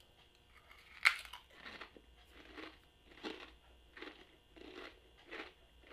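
A person biting into a Lay's potato chip, one sharp crunch about a second in, then crunchy chewing at about one chew every two-thirds of a second.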